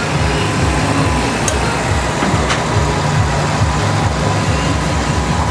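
Case IH tractor's diesel engine running under heavy load at steady revs as it drags a tractor-pulling sled along the track.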